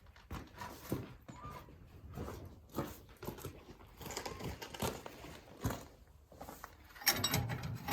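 Scattered light clicks and scrapes of a pry bar and wrenches against cast-iron engine parts as a stuck cylinder head is being pried loose, with one sharper click near the middle and busier handling near the end.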